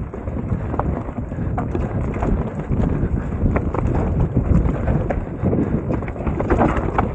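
Mountain bike rolling down a rough trail: a steady rumble from the tyres with frequent rattles and knocks from the bike as it hits roots and rocks.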